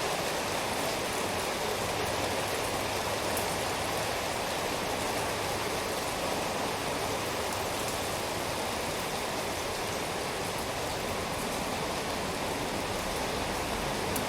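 Steady rainfall, an even hiss of many drops with faint patters of individual drops.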